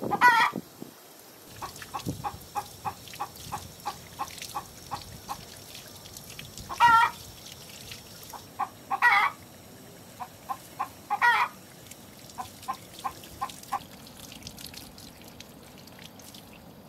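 A chicken cackling: runs of short, evenly spaced clucks, about three a second, broken four times by a longer, louder call.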